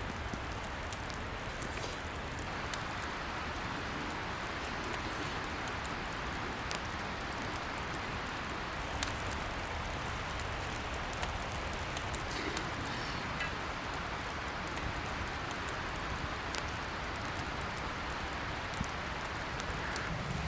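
Wood fire burning: a steady hiss with scattered sharp crackles and pops.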